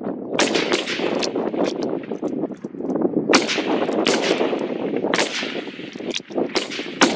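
Rifle shots on a firing range at irregular intervals, about ten in the space of a few seconds, some close and loud and others fainter, each trailing off in an echo. There are more shots than one bolt-action rifle could fire in that time, so several rifles along the firing line are shooting.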